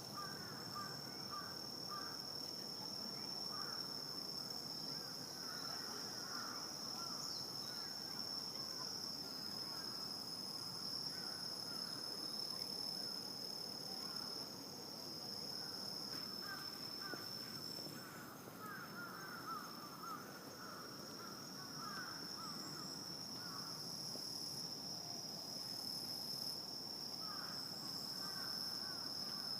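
Night insect chorus: a steady high-pitched trill, with bouts of rapid lower chirping coming and going.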